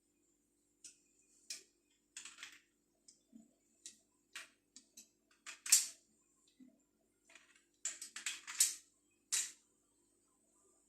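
Irregular clicks and short scrapes of plastic pipe fittings being handled and screwed together, the loudest about six and nine seconds in, over a faint steady hum.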